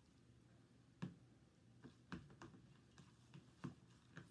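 Metal fork clicking and scraping against a plastic food container while stirring noodles: a string of faint, irregular clicks from about a second in.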